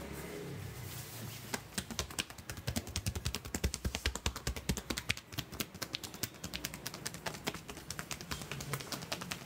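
A barber's massage strikes: fast open-hand slaps and chops on a client's back and shoulders through a cotton shirt, a quick, uneven patter of sharp smacks that starts about a second and a half in.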